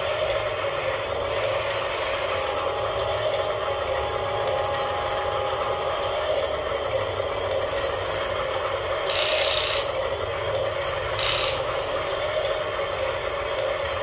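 Huina remote-control toy excavator's geared electric motors whirring steadily as the boom and bucket move through sand, with two short hisses about nine and eleven seconds in.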